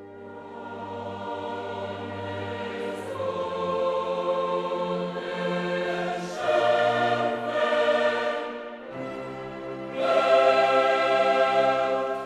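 Background choral music: a choir singing long held chords that change every couple of seconds, swelling louder twice in the second half.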